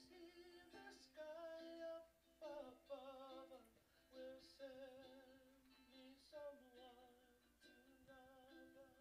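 Faint background music: a song with a woman singing held notes with vibrato over instrumental accompaniment.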